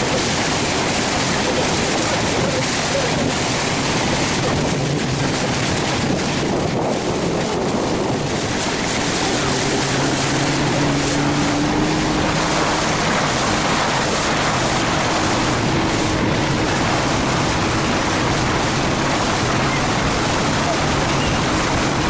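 Steady rush of wind and water from a boat moving across open sea, with a faint low engine hum in the middle stretch.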